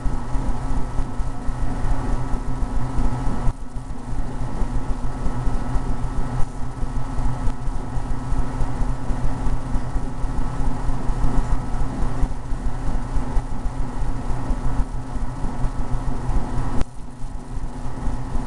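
A steady, loud mechanical hum made of several held tones, dipping briefly twice.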